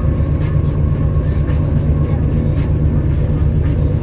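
Train running: a loud, steady low rumble with faint, intermittent clicks and rattles.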